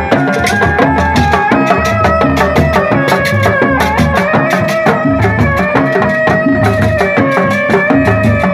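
Sundanese reak ensemble playing on the march: dog-dog drums beat a fast, steady rhythm under a sustained, wavering melody line.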